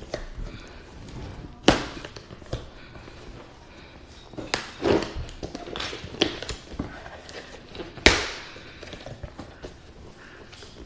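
A shipping package being opened by hand: two sharp thumps, one about two seconds in and one about eight seconds in, with shorter scuffs and rustles in between.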